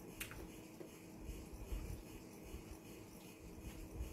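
Faint scraping of a knife and fork on a plate, with one light click just after the start.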